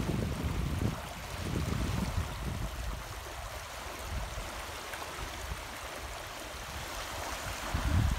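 Shallow water rushing and rippling in a tidal channel running across a sandy beach into the sea, a steady hiss of moving water. Low rumbling buffets of wind on the microphone come through near the start and grow louder near the end.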